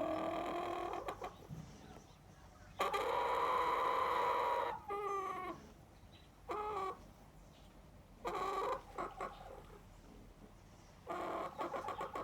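Chicken calling over and over, about six separate calls with pauses between them, one of them drawn out for about two seconds. This is the lonely call it makes when it is shut out of the house.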